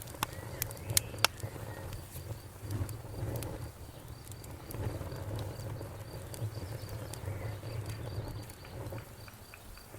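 Wood fire crackling, with a few sharp pops in the first second and a half and smaller snaps later over a low, wavering rumble of the flames.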